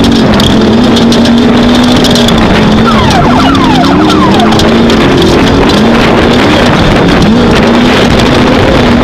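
Off-road race vehicle at speed: its engine runs loud and steady, the pitch dipping and recovering a few times. Constant rattling and knocks come from the chassis, and a quick run of short falling squeals sounds about three to four seconds in.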